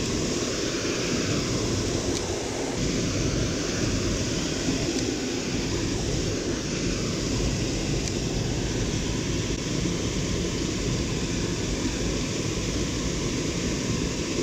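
Steady rush of a small waterfall: water pouring out of a culvert into the pool below.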